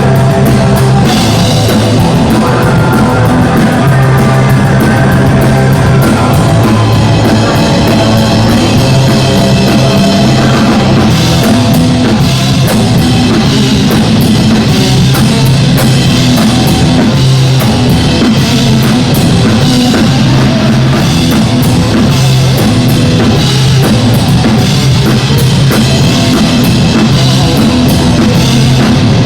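A live band playing loud, driving rock-style music, with a repeating bass line and steady drum hits.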